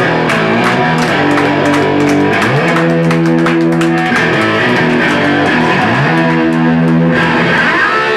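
Live rock band with electric guitars and bass playing an instrumental riff without singing. Notes are held, and a sliding note rises into the figure about every three and a half seconds.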